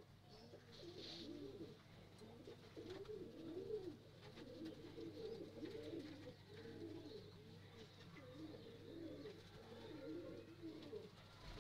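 Bankay highflyer pigeons cooing: a steady run of low, rolling coos, one overlapping the next.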